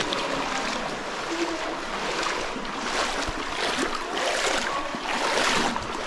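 Water splashing and sloshing in uneven surges as people wade through a creek inside a cave.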